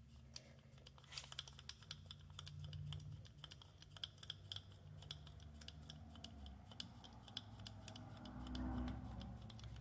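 Faint, irregular light clicks and ticks as a rotary table is cranked by hand to turn the milled brass part, over a low steady hum.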